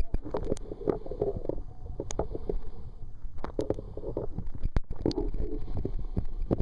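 Muffled rumble and gurgle of water heard through an underwater camera, broken by scattered sharp knocks and clicks.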